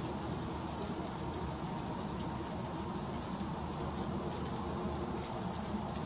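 Freezing rain falling steadily: an even hiss with scattered light ticks of drops striking icy surfaces.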